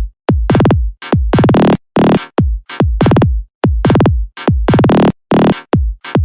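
Electronic sound-check music from a drum machine and synthesizer: a rapid run of loud bass hits, each sliding down in pitch into deep bass, several a second.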